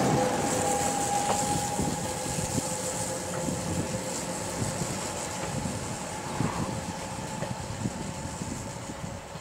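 Köf II small diesel shunting locomotive running at low speed. Its engine note carries a steady whine and grows gradually quieter.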